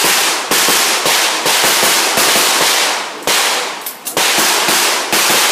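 Handgun shots fired in a rapid string, roughly one to two a second, each a sharp crack followed by a fading echo.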